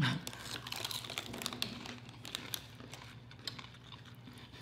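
Crunchy tortilla chips and hot fries being bitten and chewed close to the microphone: a sharp crunch right at the start, then irregular crisp crackling.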